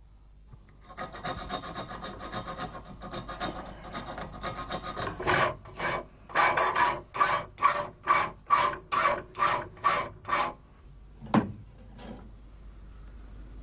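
Hand file rasping on a nickel silver knife crossguard: quick, close-set strokes at first, then about a dozen slower, even strokes at a little over two a second. A single knock follows near the end.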